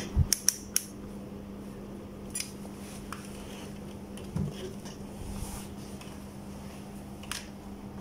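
A few light clicks and taps as a multimeter and its wire temperature probe are handled and the probe is put into a mug of water. The clicks come in a quick cluster at the start, then a few softer taps, over a steady low hum.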